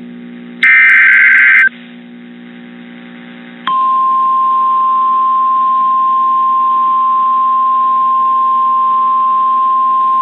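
NOAA Weather Radio alert signalling: about a second of harsh SAME digital header data just after the start, then, from nearly four seconds in, the single steady 1050 Hz Weather Radio warning alarm tone that announces a new warning.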